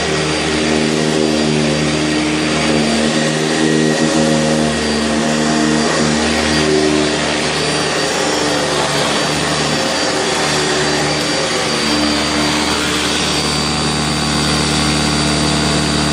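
Sanitaire SC679 commercial upright vacuum running on carpet, its motor and spinning brushroll agitator going steadily. The motor's hum wavers a little in pitch.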